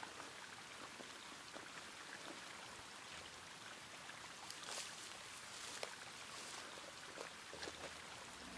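Faint running water of a small woodland stream, a steady soft hiss, with scattered light rustles and ticks.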